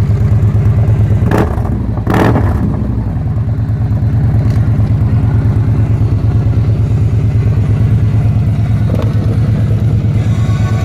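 Motorcycle engine idling with a steady rapid pulse, with two short whooshing sweeps about one and a half and two seconds in.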